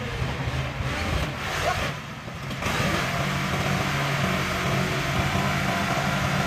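Farm tractor's diesel engine running steadily under load while it tips its loaded trailer to dump soil, a little louder from about two and a half seconds in.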